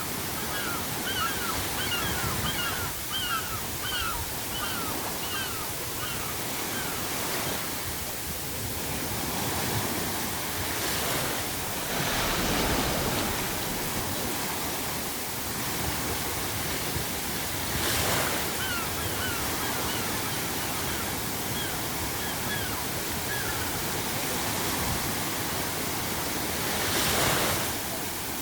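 Ocean waves surging and breaking on the shore, with a big wave crashing about twelve seconds in and others near the end. Seagulls call in quick runs of short cries, early on, again midway and near the end.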